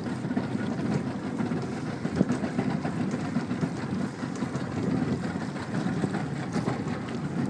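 Steady low rumble aboard a small fishing boat on choppy water, with a few faint knocks.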